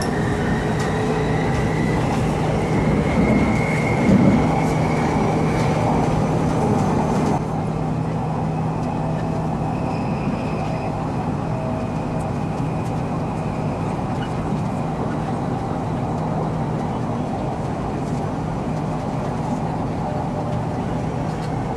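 Japanese-built Bangkok MRT Purple Line electric train running along the elevated track, heard from inside the car: a steady rumble of wheels on rails with a constant low hum, easing slightly about seven seconds in.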